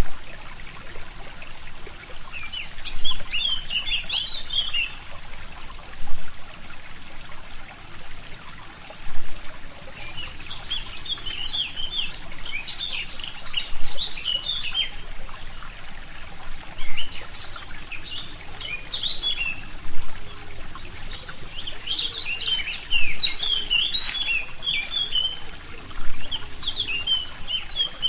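Small forest songbirds singing in bouts of quick, twittering phrases over a steadily trickling stream. Brief louder surges from the water come about every three seconds.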